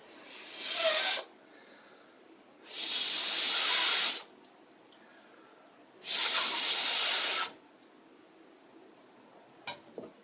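Three long breaths blown into a smouldering tinder bundle to coax a friction-fire ember into flame, each a smooth hiss about a second long, followed near the end by two small clicks or crackles.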